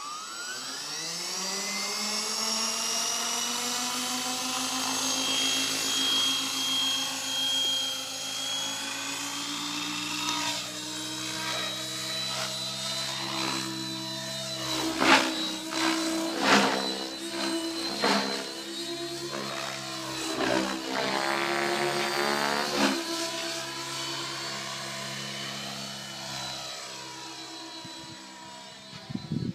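Synergy E7SE electric RC helicopter spooling up, its motor and rotor whine rising in pitch over the first few seconds, then holding steady as it lifts off and flies, with a few sharp surges in loudness about halfway through.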